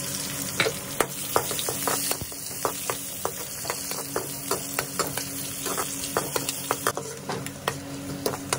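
Garlic cloves sizzling in hot oil in a metal kadai as a metal spoon stirs them, clicking and scraping against the pan many times at irregular intervals.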